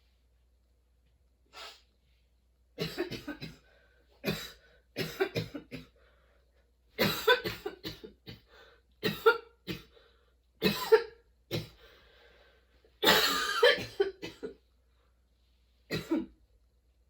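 A woman coughing in a prolonged, persistent fit: bouts of several coughs in quick succession with short pauses between them, the longest and densest bout about thirteen seconds in.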